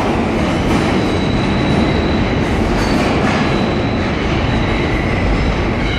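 R160 subway train pulling away into the tunnel: a steady rumble of steel wheels on the rails, with a thin high wheel squeal running over it for a few seconds.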